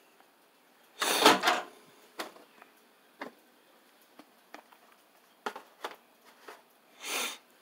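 Microwave oven door opening with a clunk about a second in, followed by light clicks and knocks as the plate and burger patty on the turntable are handled, and another clunk near the end.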